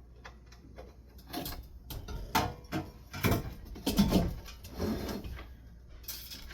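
Irregular knocks and scrapes of a ceiling fan's parts being handled and set down on a shelf, the loudest bumps coming between about two and five seconds in.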